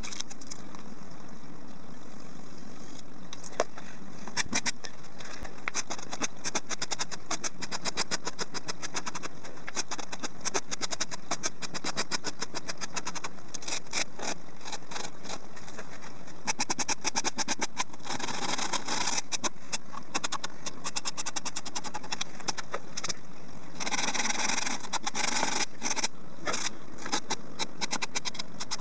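Sanding block rubbed in quick back-and-forth strokes over rigid pink foam board, shaping a rebuilt foam nose: a fast, continuous rasping scratch. It gets heavier in two stretches, about two-thirds of the way in and again near the end.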